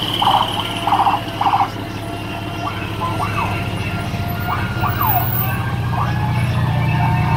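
Fire trucks passing in a parade. One truck's diesel engine drones and grows louder, three short horn blasts sound in the first two seconds, and sirens wail up and down in pitch.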